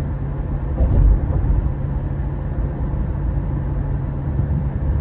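Car driving along a road, heard from inside the cabin: a steady low engine and road rumble, with a brief louder bump about a second in.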